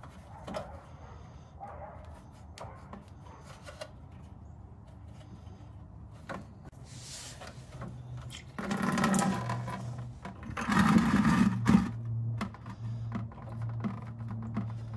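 Faint clicks of a hand working a plastic radiator drain petcock. About nine seconds in come two loud spells of coolant gushing and splashing into a plastic bucket as the petcock comes right out of the radiator, and then a steadier flow.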